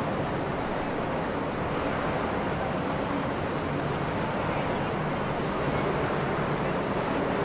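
Steady rushing of wind and water, with a faint low hum of a boat engine coming and going.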